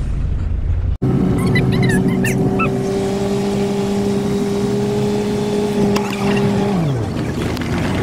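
Shuttle van's engine running at a steady speed with a steady hum over road noise, its pitch dropping near the end as the van slows.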